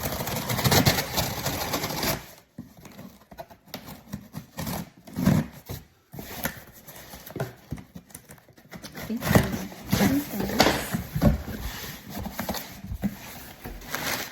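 A mailed package being handled and opened: irregular rustling, crinkling and tearing of packaging, with a few short knocks.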